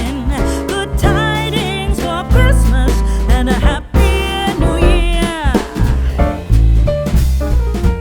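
Background music: a singer with vibrato over a band with bass and drums, the voice sliding down in a long fall about five seconds in.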